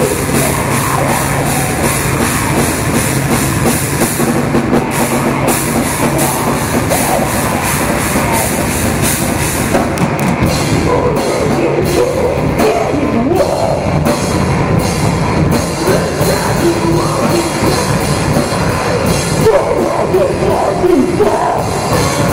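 Heavy metal band playing live: electric guitar over a Sonor drum kit, loud and continuous.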